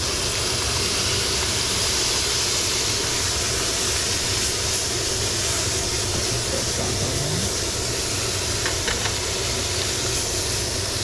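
Silver (coho) salmon fillet frying in a hot pan, a steady sizzle, with a steady low hum underneath and a few faint clicks near the end.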